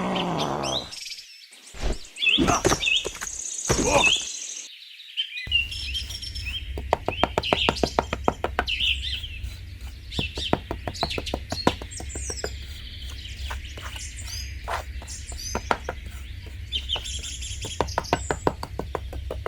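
Birds chirping, with many sharp clicks and taps throughout and a low steady hum that starts about five seconds in.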